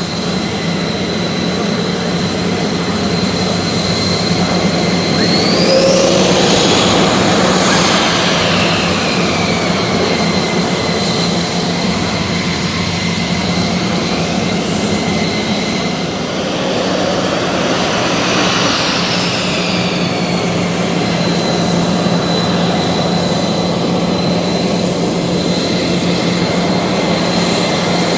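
Aircraft turbine engine running with a steady high whine over a low drone; twice, about six and eighteen seconds in, the whine swoops up in pitch and back down.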